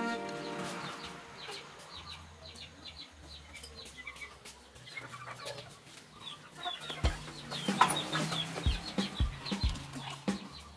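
Chickens clucking and calling with short, repeated notes, and a few light knocks and taps from about seven seconds in.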